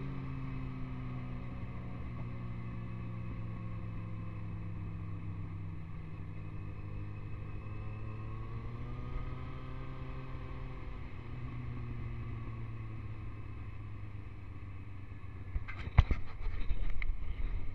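Vehicle engine idling steadily, its pitch drifting slightly up and down. A few sharp knocks and clatters come near the end, one of them louder than the engine.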